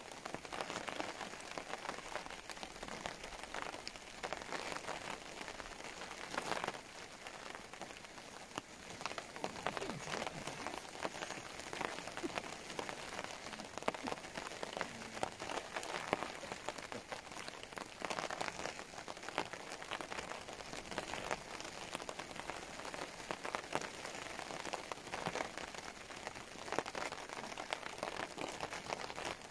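Heavy rain falling steadily, a dense patter of drops with small swells in strength.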